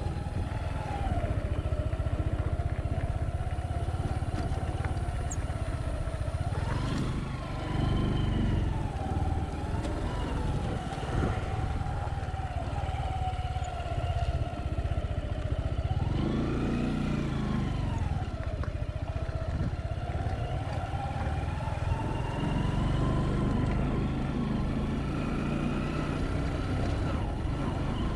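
A vehicle engine runs continuously, its pitch rising and falling several times as the throttle opens and closes, over a steady low rumble of wind and road noise.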